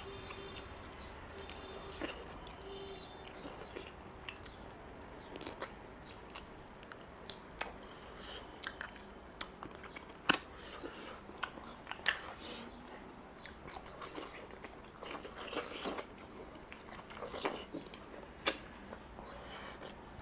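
Close-up chewing and biting of a mouthful of mutton curry and rice: wet mouth noises with scattered sharp clicks and crunches, the loudest about ten and twelve seconds in.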